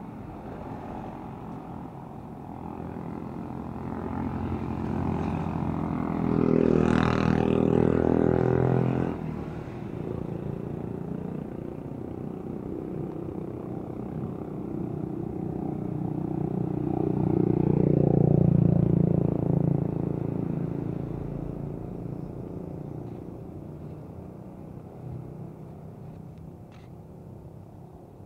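Road traffic passing: vehicle engines and tyres, with two vehicles swelling loud as they go by, about seven and eighteen seconds in.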